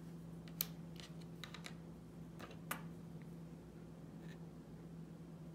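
A few light clicks and taps of small miniature-kit pieces being handled and set against each other and the cutting mat, mostly in the first three seconds, over a steady low hum.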